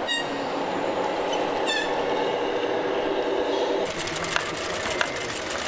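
An LGB garden-scale model freight train rolling along its track, a steady rumble with two short squeals from the wheels. About four seconds in, this gives way to small live-steam model engines driving belt-driven workshop models, a busy mechanical chatter with sharp clicks.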